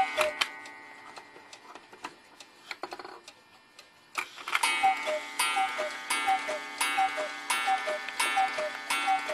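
Cuckoo clock: scattered ticks and clicks. About four seconds in it settles into a regular series of strikes, roughly one and a half a second, each with a short falling two-note cuckoo call.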